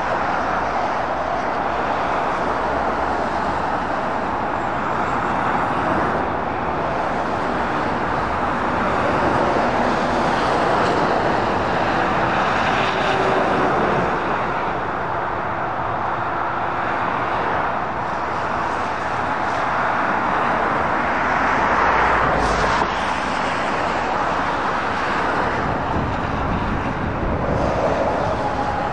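Motorway traffic: a steady wash of tyre and engine noise from passing cars and lorries, swelling and easing as vehicles go by, with a brief louder rush a little past two-thirds of the way through.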